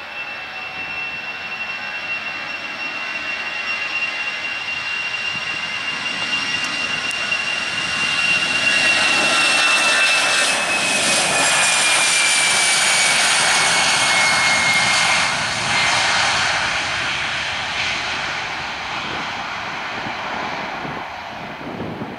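Airbus A319-111's twin CFM56 jet engines at takeoff power during the takeoff roll: a high whine over a rushing jet noise that grows louder, peaks as the aircraft passes, then fades. The whine drops in pitch as it goes by.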